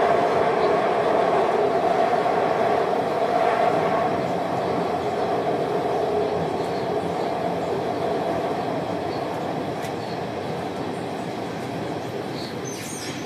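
Metro train running through a tunnel, heard from inside the carriage: a steady rumble of wheels and motors that grows gradually quieter as the train slows toward a station, with a few faint high squeaks near the end.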